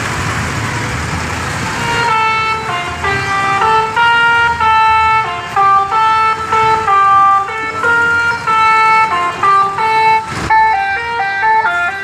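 Basuri horn on a parade odong-odong vehicle, a multi-note musical horn, playing a quick melody of stepped notes. It starts about two seconds in, over the noise of slow traffic.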